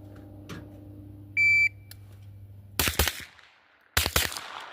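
A shot timer's start beep, one short high steady tone, then a rapid string of gunshots, a brief pause and a second rapid string about a second later, each echoing off the range.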